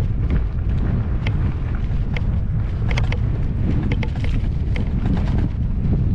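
Wind buffeting the microphone over the rumble of an electric unicycle rolling down a rough dirt trail, with scattered short clicks and rattles.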